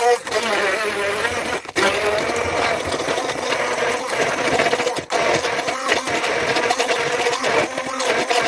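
Small electric food chopper running, grinding chunks of raw red onion with no water added. The motor cuts out for a moment twice, about two seconds in and about five seconds in.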